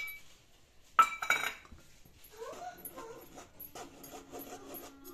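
A stainless steel mesh sieve clinks against a glass mixing bowl about a second in, then ticks lightly as it is tapped to sift cocoa powder and flour through. In the second half a whining sound slides up and down in pitch, then holds a steady tone near the end.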